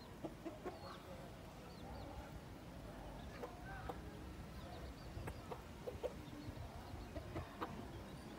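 Domestic chickens clucking softly while foraging: short, scattered clucks at irregular intervals, with a few brief high chirps.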